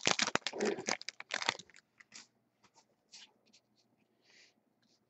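Foil trading-card pack wrapper crinkling and tearing as it is peeled open for about a second and a half, then only faint rustles and ticks as the cards are handled.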